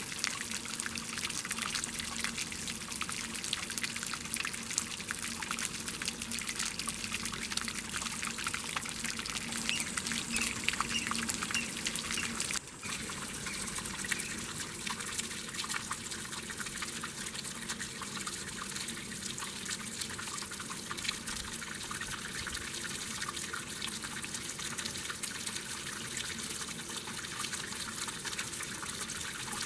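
Water splashing and trickling, a steady dense patter of small splashes, with a brief break in the sound about thirteen seconds in.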